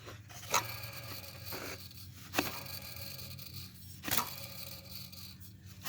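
Idler pulley on a Chevrolet Blazer's serpentine belt drive, spun by hand with the belt off, its bearing making a steady rough grinding with a sharp click each time the pulley is flicked, four times. The bearing is worn out and needs replacing.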